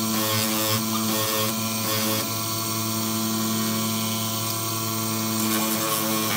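Motor-driven grinding wheel spinning with a steady hum; near the end a steel blade is pressed against the wheel and starts grinding, throwing sparks.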